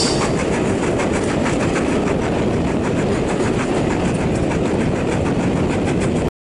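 Steam-hauled train running, heard from a carriage window of the train hauled by 45407 Lancashire Fusilier: a steady dense rumble of the train with a faint regular beat through it. The sound cuts off suddenly near the end.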